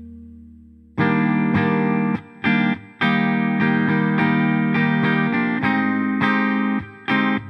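Background music led by a plucked guitar, coming in sharply about a second in after the fading tail of the previous note, with two brief breaks in the playing.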